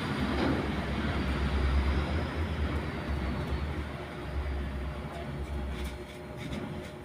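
Whirlpool 8MWTW224WJM top-load washing machine in its spin cycle: the drum spins with a low rumble and a faint high whine, both easing off in the last few seconds as the spin slows.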